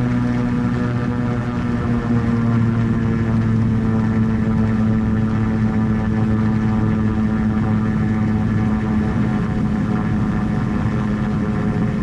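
Lake Renegade amphibian's single pusher-propeller piston engine running steadily at high power while the hull planes across the water, its note drifting slightly lower over the stretch.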